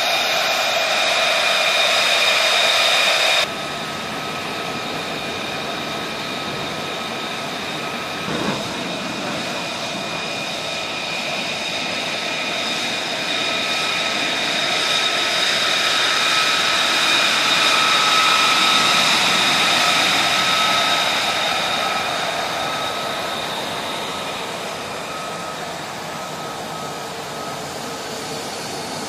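F-35A fighter's Pratt & Whitney F135 turbofan running at taxi power: a steady, high-pitched whine over a rushing noise. The level drops abruptly about three seconds in, then swells to a peak around the middle and fades as the jet taxis away.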